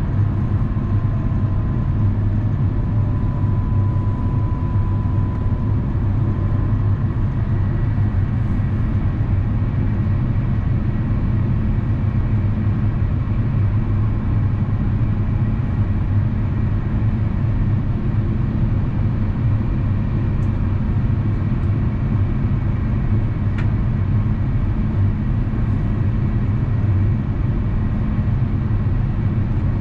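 Steady cabin noise of an Airbus A350-900 descending, heard from a window seat beside the wing: a deep, even rumble of airflow and the Rolls-Royce Trent XWB engines, with a faint high whine a few seconds in.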